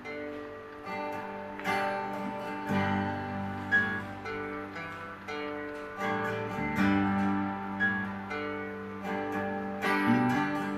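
Acoustic guitar played without singing, as a song's instrumental introduction: picked notes and chords sounding every second or so and ringing on between them.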